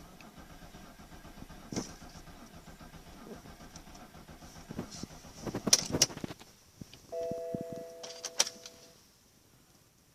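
Car cabin sounds: a faint electrical hum with sharp clicks, then a steady two-note electronic chime lasting about two seconds, with no engine catching.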